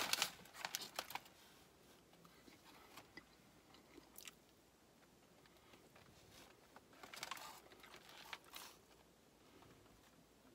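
Someone biting into crispy fried chicken and chewing, faint and close: a quick run of crisp crackles in the first second, then a few separate crunches of the breading.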